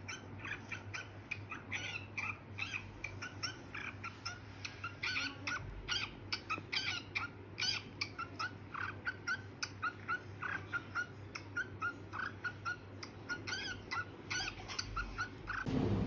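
Lutino cockatiel giving a rapid run of short chirps, about three or four a second. A louder noisy hiss cuts in at the very end.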